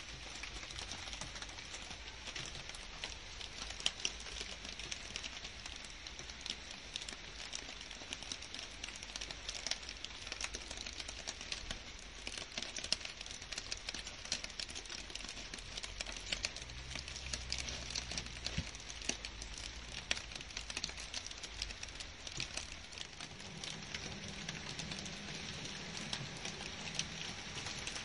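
Steady rain falling on garden shrubs, grass and leaves: an even hiss thick with many small drop taps. A faint low rumble joins in during the second half.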